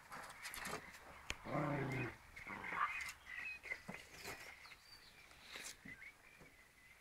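Springer spaniel puppies vocalizing in play: a low growl about one and a half seconds in, then shorter higher-pitched sounds, among scattered clicks.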